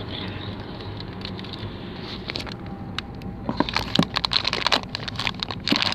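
Steady low rumble of road and engine noise inside a moving car's cabin. From about three and a half seconds in, a run of clicks, crackles and rustles from the phone being handled against a fleece blanket.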